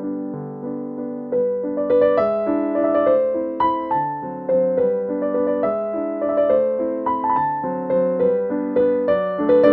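Background piano music: a gentle melody of single struck notes and chords, each fading before the next, at an unhurried pace.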